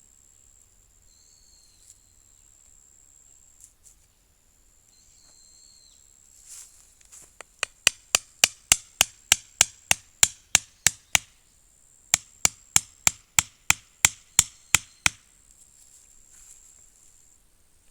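A tool striking wood in two quick, regular runs of about three or four blows a second, with a short pause between them.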